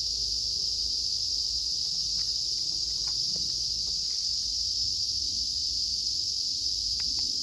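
Steady, unbroken high-pitched insect chorus, with a few faint ticks.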